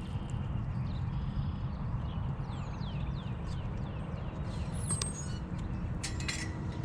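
A small songbird sings a quick run of about six short falling whistled notes, then gives a brief high call. Under it runs a steady low rumble of wind and movement, and a short rattle comes near the end.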